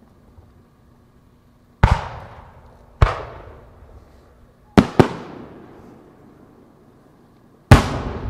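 Aerial firework shells bursting: five sharp booms, two of them in quick succession near the middle, each followed by a long rolling echo.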